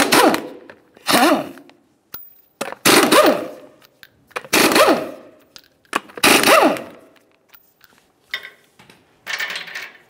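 A 1/2-inch impact gun spinning off 19 mm lug nuts in about five short runs of rapid hammering, each winding up and back down in pitch. Quieter knocks follow near the end.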